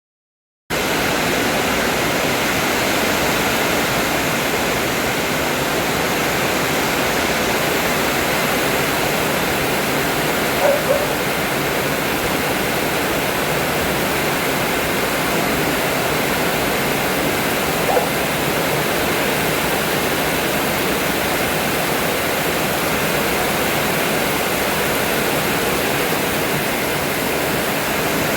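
Steady rushing noise of strong wind and rain, starting abruptly just after the beginning and holding level throughout, with two brief faint sounds about eleven and eighteen seconds in.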